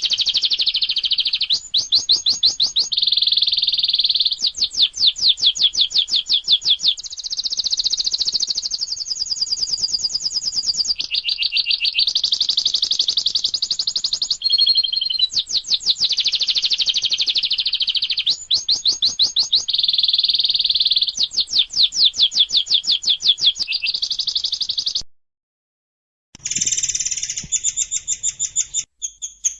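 Recorded songbird song in fast trills of rapid repeated high chirps, changing from one trill to the next every second or two. It stops abruptly for about a second near the end, then starts again.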